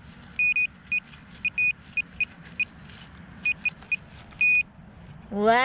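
Handheld metal-detecting pinpointer probe giving short, high beeps at uneven spacing, some in quick pairs and one longer beep near the end, as its tip is swept over a metal target in the soil. A voice starts just before the end.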